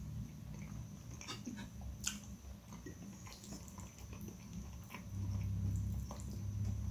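Close-miked chewing of instant noodles, with wet mouth sounds and a fork clicking now and then against a glass plate. A low steady hum comes in about five seconds in and is the loudest part.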